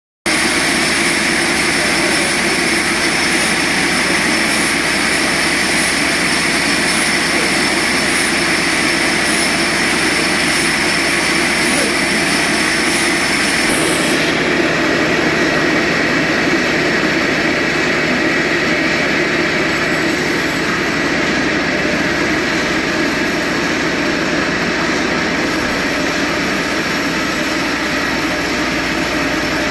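Sawmill machinery running with a loud, steady mechanical drone. Its tone shifts abruptly about halfway through.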